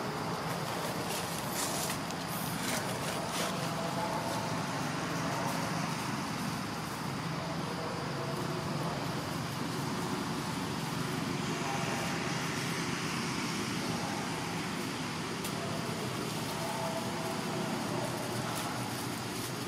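Steady outdoor background noise, with faint short pitched calls now and then.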